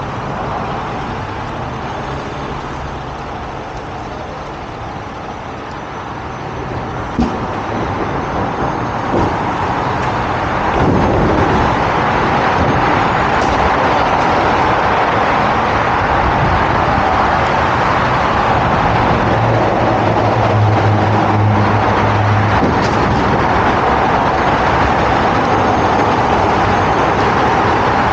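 Heavy truck engine running steadily under a constant rushing noise that gets louder about eleven seconds in, with a couple of brief knocks.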